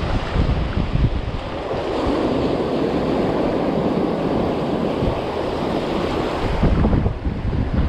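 Surf washing in over the shallows, a wave's rush swelling about two seconds in, with strong wind buffeting the microphone.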